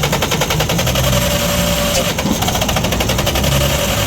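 Diesel engine turning over with a fast, even beat, not catching: the faulty injection pump is delivering no fuel to the injector nozzles.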